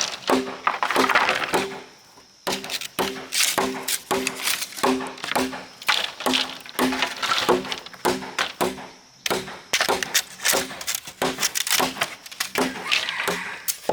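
Background music: a short low riff of repeated notes at a few fixed pitches, with sharp knocks or percussive clicks throughout.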